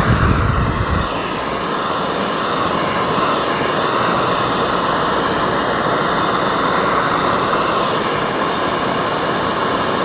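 Bernzomatic MAP-Pro propane-style hand torch burning with a steady hiss, its flame held on a jumper cable until the insulation catches fire.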